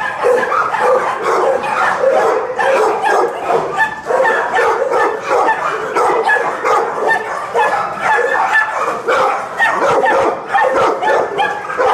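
Many kennelled dogs barking and yipping at once: a continuous din of overlapping barks with no pause.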